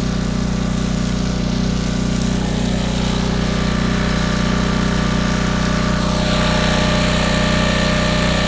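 Portable gas generator engine running steadily under the load of a sump pump, a constant mechanical hum. About six seconds in, a brighter hiss comes in on top and the sound gets slightly louder.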